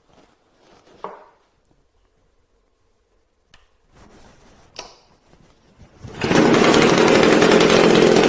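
A few short knocks, then about six seconds in the Homelite XL-98 cut-off saw's two-stroke engine comes in abruptly and runs loudly and steadily. This is its first test run on a new-old-stock carburetor.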